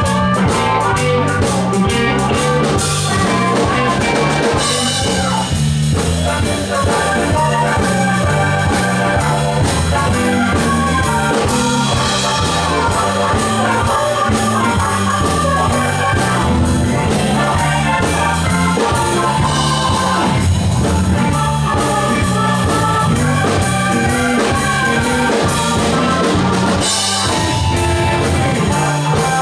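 Live blues band playing a shuffle. A harmonica plays lead over electric guitar, a bass line stepping up and down, and a drum kit with cymbals.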